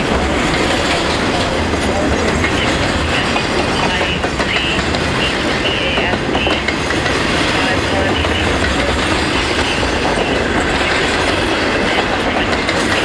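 Double-stack container cars of a freight train rolling past, wheels clacking over the rail joints in a steady, loud rush. A faint high squeal from the wheels comes and goes around the middle.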